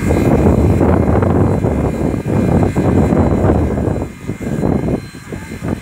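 Soo Line 1003, a coal-fired 2-8-2 Mikado steam locomotive under steam, heard at close range as a loud, steady low rumble. The rumble dips briefly about four seconds in and builds again near the end.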